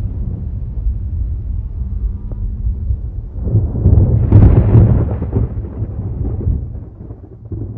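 Thunder rumbling: a continuous deep roll that swells to a louder crack-and-rumble about halfway through, then dies away.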